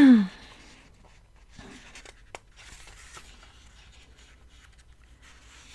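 Paper planner pages being leafed through and handled: faint soft rustles with a light click partway through. It opens with a short, louder falling vocal sound.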